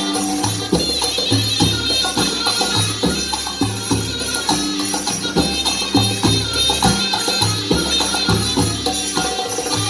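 Music with a steady drum beat, and a tambourine-like jingle over it.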